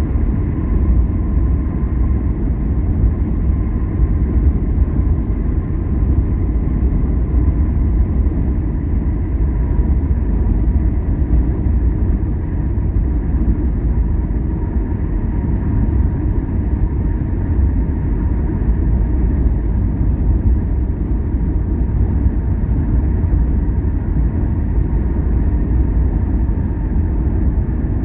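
A car driving along the road: a steady low rumble of engine and tyres, with a faint steady whine.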